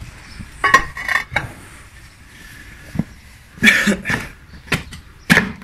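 Steel pickaxe head knocking and scraping against stone paving slabs as they are levered up, a series of sharp irregular clanks and clinks.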